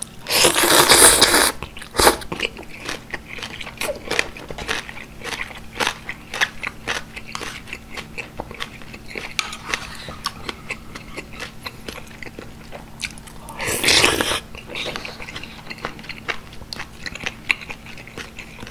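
Close-miked eating: a loud slurp about a second long as strands of green onion kimchi are drawn into the mouth, then chewing with wet clicks and crunches. Another short slurp comes about two-thirds of the way through.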